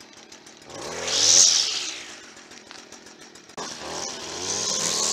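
Petrol string trimmer engine revving up and falling back, then revving up again about three and a half seconds in and staying at speed.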